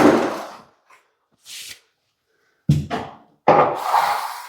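A plasterer's hand tool rubbing and scraping across a freshly skimmed ceiling patch, in about four separate strokes; the plaster is firming up and nearly dry.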